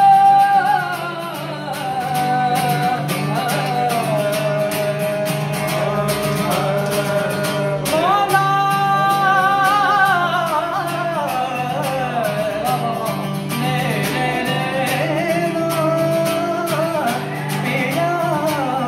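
Male voices singing a folk song in long held, wavering notes with slides in pitch, over a strummed acoustic guitar.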